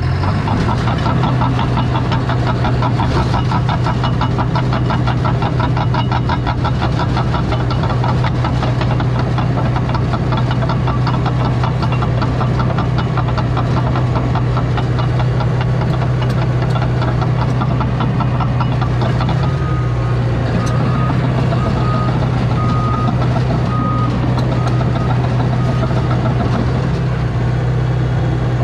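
CAT D3 bulldozer's diesel engine running steadily under load with a fast rattling of the moving tracks, and, in the second half, its backup alarm beeping about once a second for several seconds as it reverses.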